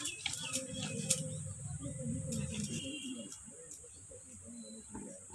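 Stone roller rubbed back and forth over a flat grinding stone (sil-batta), wet-grinding spice paste: a low, rough scraping that fades after about three seconds, with a few clicks of stone on stone. Birds chirp faintly.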